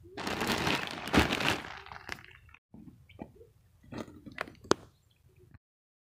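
A parcel being opened: packaging crunches and crackles for about two and a half seconds. After a brief break come a scattered series of sharp clicks and snaps, the sharpest one near the end.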